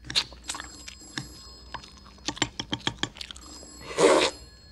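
A telephone bell ringing, with knives and forks clicking and scraping on china plates. About four seconds in there is a brief, louder eating noise as a forkful goes into a mouth.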